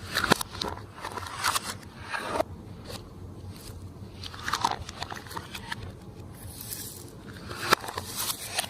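Glossy slime being squeezed and worked by hand, giving irregular sticky squelches with crackles and sharp pops.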